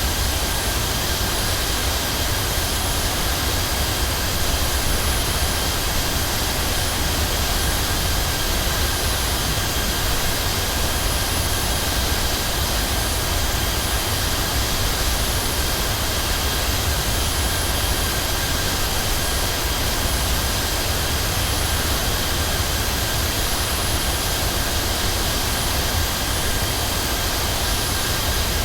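Jet airliner's engines and airflow droning steadily, heard from inside the cabin: a deep rumble under an even hiss with a faint steady whine, unchanging throughout.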